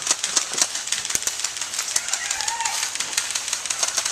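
Airsoft guns firing: a scattered series of sharp clicking pops, irregularly spaced, a few each second.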